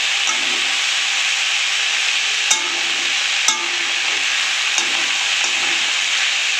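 Chopped onion, capsicum, tomato and green chillies sizzling steadily in hot mustard oil in a metal kadai as a metal spatula stirs and fries them with spices. A couple of sharp clicks of the spatula against the pan come about two and a half and three and a half seconds in.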